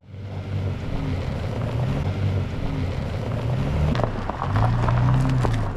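Car running, a steady low engine hum under road and wind noise, with a few light clicks about four seconds in.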